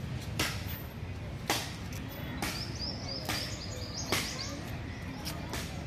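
Outdoor-gym leg press machine knocking sharply about once a second as it is worked, over steady outdoor background noise, with faint bird chirps in the middle.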